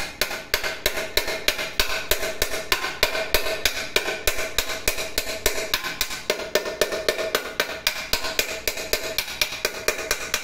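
Small hammer tapping rapidly and evenly, about five blows a second, peening the rivets that fix a handle to a metal milk pot. Each blow makes the pot ring.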